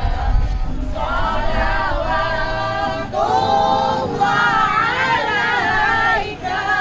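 A group of men and women singing together in long, held phrases, each lasting one to two seconds, over a low background murmur of the crowd.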